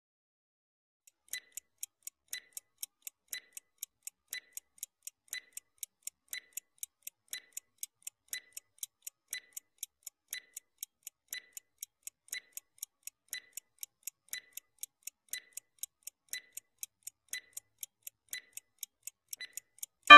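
Ticking-clock sound effect for a quiz countdown timer: even, sharp tick-tock beats about two a second that start about a second in.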